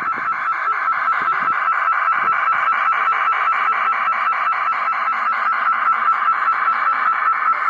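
MyFlyDream TeleFlyOSD telemetry sent as audio data tones: a loud, steady warble in the upper-middle range, pulsing about ten times a second.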